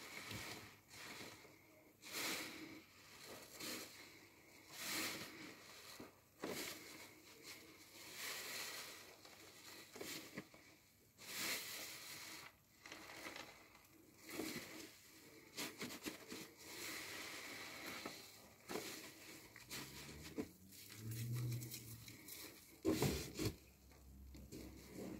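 A new car sponge being squeezed and kneaded in thick soapy lather: wet, crackling squishes of foam and suds, one squeeze about every second or so.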